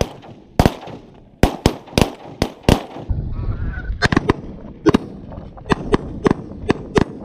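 A rapid volley of about fifteen shotgun blasts from several hunters firing at a flock of Canada geese, some shots close together in pairs. Canada geese honk between the shots.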